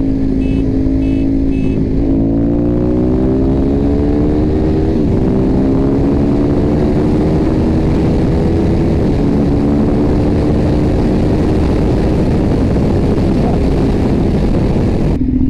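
Ducati 848 EVO's L-twin engine through its Termignoni exhaust, pulling hard at highway speed: the pitch climbs, drops at upshifts about five and nine seconds in, then holds steady. Wind rushes over the microphone throughout.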